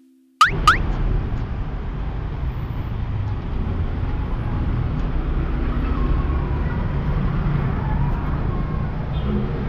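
Street ambience with a steady low rumble of road traffic. It cuts in about half a second in with two brief, sharp sweeping chirps.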